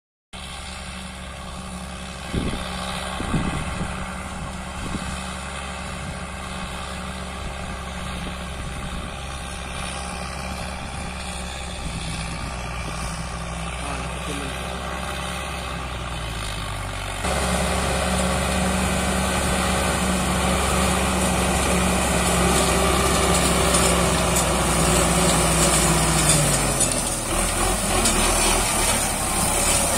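Sonalika tractor's diesel engine running steadily as it drives a PTO rotary mulcher through dry sugarcane trash, with a few knocks a few seconds in. About halfway through it becomes much louder and noisier, and near the end the engine note drops.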